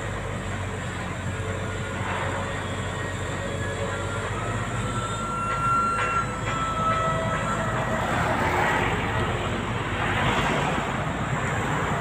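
Steady roadside traffic and engine noise, swelling as vehicles pass about eight and ten seconds in, with a thin high whine for a couple of seconds near the middle.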